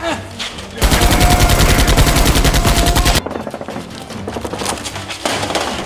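A loud burst of rapid automatic gunfire, a movie-style machine-gun sound effect, starting about a second in, lasting about two and a half seconds and cutting off abruptly.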